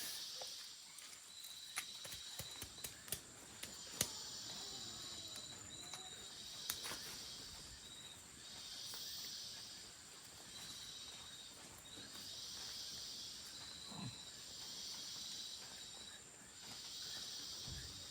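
Insects chirring in tropical vegetation: a high buzzing that swells and fades every few seconds over a thin, steady high trill. A few sharp clicks fall in the first seven seconds.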